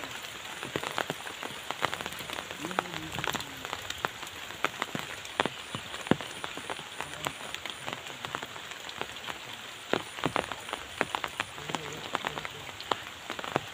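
Steady rain hiss with many sharp raindrop ticks close by, over a swollen river in flood. A faint, high chirp repeats in three short runs of about three a second.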